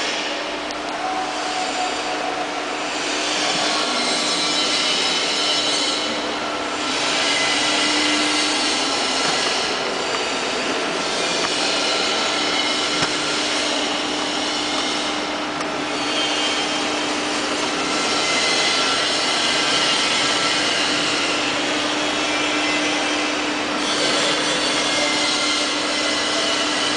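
FAT 630 straight-bed lathe running under power: a steady machine drone with a constant low hum under it and a higher hiss that swells and eases every few seconds.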